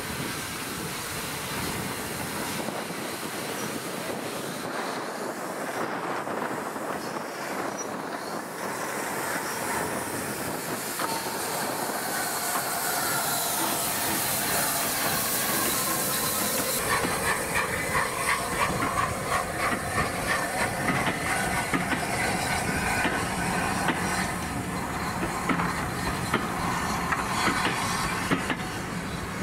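Steam train moving off behind Merchant Navy Pacific 35006: a steady rumble, then strong steam hissing from the cylinders. After that comes rapid clickety-clack of the coach wheels over the rail joints, with faint wheel squeal, as the carriages roll past.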